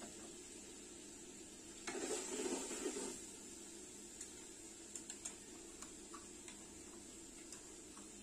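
Onions and spice powder frying in oil in an aluminium pot, with a faint steady sizzle. A metal ladle stirs the pot for about a second starting two seconds in, then only scattered small crackles of the frying are left.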